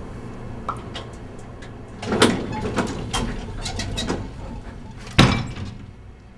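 A door being worked: light clicks and knocks, with two heavier thuds about two seconds in and about five seconds in.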